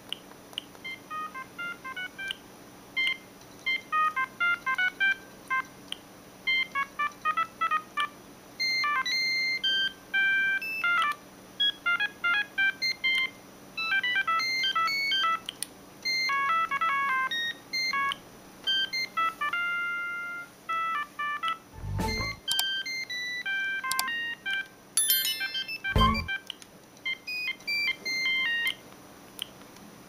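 Siemens C65 mobile phone ringtones playing: quick runs of short, high synthesized beep notes, several sounding at once, in phrases broken by brief pauses. Two short deep thuds come a little past the middle.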